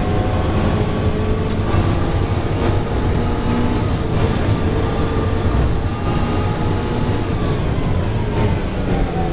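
Ferrari 488 Challenge race car's twin-turbo V8 running hard on track, its engine note stepping and shifting in pitch through the gears, with the revs falling steadily near the end.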